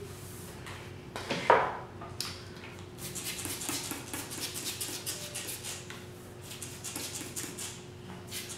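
A brush dragged through long curly wig hair, then a trigger spray bottle spritzing water onto the hair in many quick squirts from about two seconds in.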